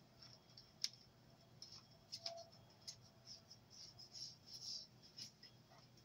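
Faint rustling and light clicking of a car wiring harness being handled, with its wires and plastic connectors moving against each other. One sharper click comes a little under a second in, and a run of rustles comes about two-thirds of the way through.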